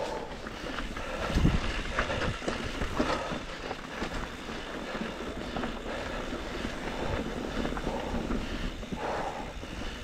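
Trek Slash 7 mountain bike riding down a rough dirt trail: a steady rumble of tyres over dirt and rocks with short knocks from the bike, and wind on the helmet camera's microphone. One heavy thump comes about a second and a half in.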